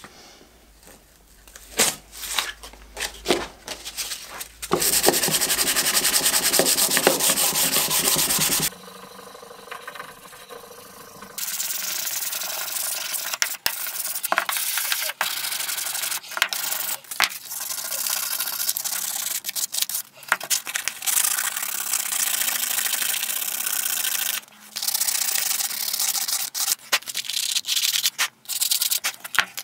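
Sandpaper on a sanding block rubbed by hand along the wooden body of an old fillister plane, in long runs of back-and-forth strokes with short pauses. In the first few seconds there are scattered rustles as the sandpaper sheet is handled.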